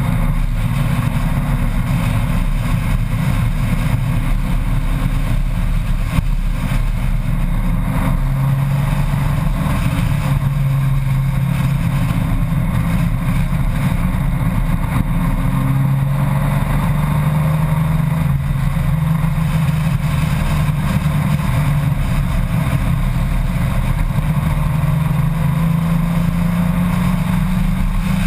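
Honda Gold Wing motorcycle riding at road speed. The engine note rises and falls with the throttle under a steady rush of wind and road noise.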